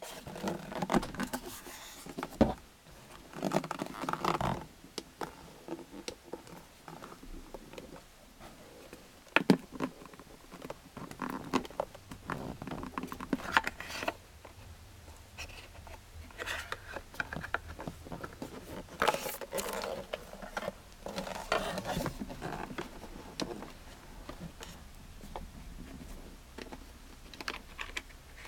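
Handling noise from a radio-control transmitter's hard plastic case being turned over and its battery compartment handled: irregular clicks, knocks and rubbing, with a few sharper knocks along the way.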